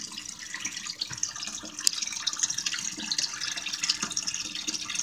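Steady trickling and splashing water in a turtle tank, with one sharp click about two seconds in.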